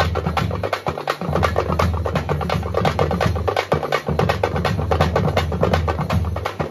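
A group of Tamil folk frame drums (parai) beaten with sticks in a fast, even rhythm. A steady low drone runs underneath and breaks off briefly twice.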